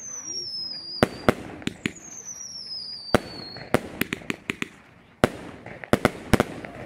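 Fireworks bursting overhead: a quick run of about a dozen sharp bangs at irregular intervals, with two falling whistles in the first half.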